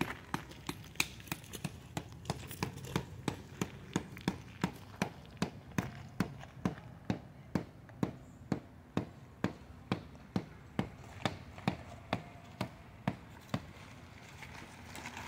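A hammer driving a tent stake into gravelly ground: a steady run of sharp metallic strikes, about two or three a second, stopping shortly before the end.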